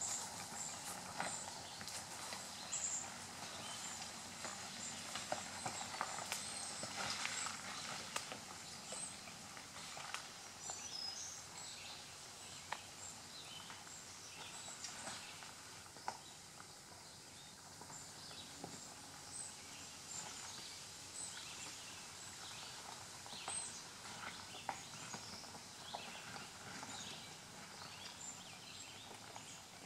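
Loose rocks and gravel crunching and knocking in an irregular string as a 2006 Ford Explorer's tyres creep slowly over a rocky dirt trail. Birds chirp faintly.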